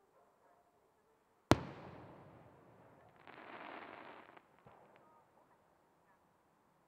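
A single distant firework shell bursting with a sharp boom about a second and a half in, its report rolling away over the next couple of seconds. About two seconds after the boom comes a second of hissing noise.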